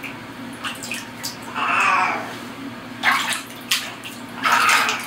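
Warm water splashing and sloshing in a small basin used as a cat's foot bath, in a few separate splashes.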